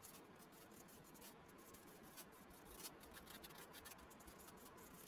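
Faint scratching of a pen writing on a sheet of paper: short, quick strokes with brief pauses between them.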